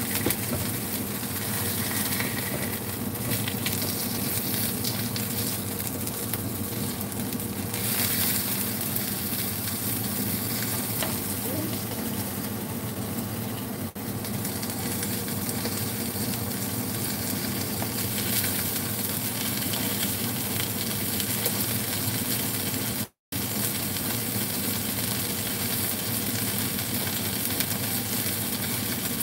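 Mayao fish pan-frying in a little oil in a nonstick pan: a steady sizzle, with a silicone spatula scraping and turning the pieces. The sound cuts out for a moment about 23 seconds in.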